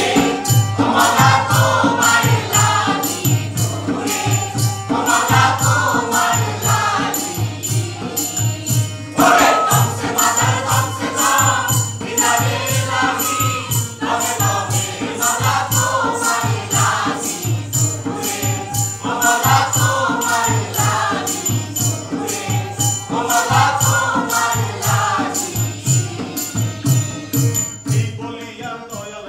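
Stage performers singing together in chorus, in phrases of a few seconds, over a fast, steady percussion beat; the music dies down near the end.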